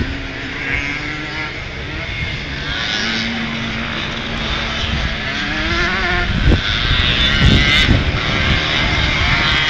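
Several vintage motocross motorcycles racing on a dirt track, their engines revving up and down through the turns. A few low thumps come in about two-thirds of the way through.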